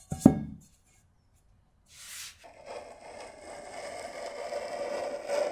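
A metal tarte tatin pan is set down upside-down on rolled tart dough with a single knock. Then, from about halfway, a knife cuts the dough around the pan's rim, a continuous scraping that grows louder as the blade runs along the pan's side.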